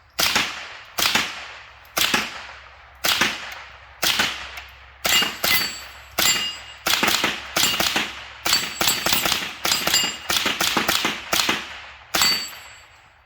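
Suppressed Smith & Wesson 15-22 semi-automatic .22 LR rifle firing a string of about twenty shots. The first shots come about one a second, and the pace quickens in the second half.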